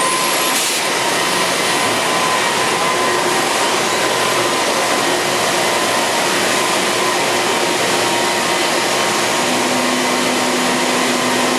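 Mazak Integrex 100-IISY CNC lathe running: a steady, even hiss of machine noise with a faint steady whine, and a lower hum that sets in near the end.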